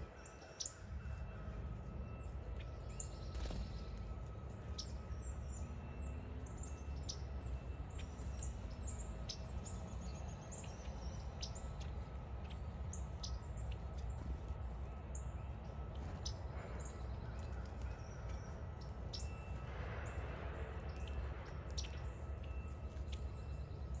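Wild birds chirping: many quick, high, falling chirps scattered throughout, over a steady low rumble.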